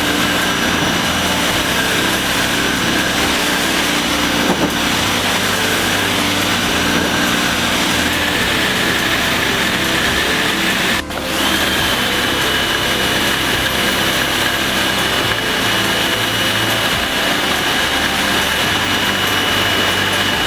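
Electric pressure washer running steadily, a loud spray with a high motor whine, broken by a brief drop about eleven seconds in after which the whine returns and settles.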